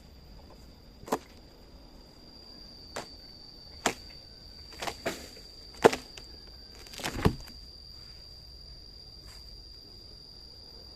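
A steady, high insect drone, such as crickets, runs throughout. Over it come about seven sharp, irregular knocks, loudest about six seconds in.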